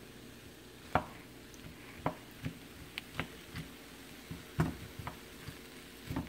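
Spatula knocking and scraping in a nonstick wok as it breaks up cold, compacted rice among frozen stir-fry vegetables. There are irregular taps, about eight in six seconds, the sharpest about a second in and about four and a half seconds in.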